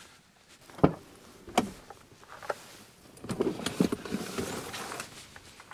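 A Chevrolet Silverado pickup's rear cab door unlatched and opened, with two sharp clunks under a second apart, followed by a couple of seconds of rustling and knocking as gear is pulled out from among the jackets inside.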